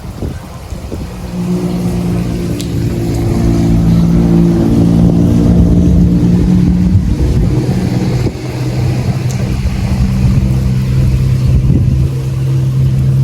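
An engine running loudly: it picks up speed about a second in, holds a steady pitch, then settles to a lower, steady pitch about eight seconds in.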